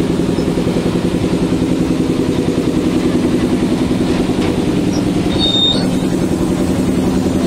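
Engine of a small ride-on park train running steadily as the train rolls along, with a fast, even pulsing to its note. A brief high chirp sounds about five and a half seconds in.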